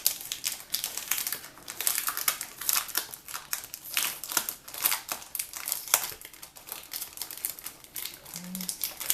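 Packaging crinkling and crackling in uneven bursts as it is handled and opened.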